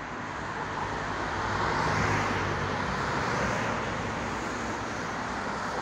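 Road traffic: a car passing on the street, its engine and tyre noise swelling to a peak about two seconds in and then easing.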